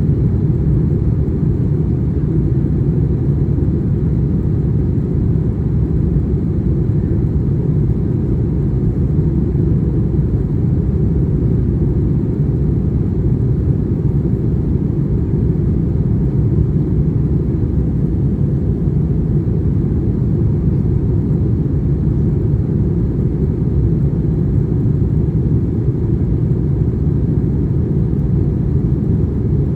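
Airbus A321-231 cabin noise, heard from a window seat: its IAE V2500 engines and the airflow make a steady low rumble with no change in pitch or level.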